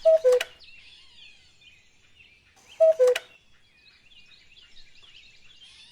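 Common cuckoo calling its two-note "cuck-oo" twice, a higher note dropping to a lower one, about three seconds apart, over faint chirping of small songbirds.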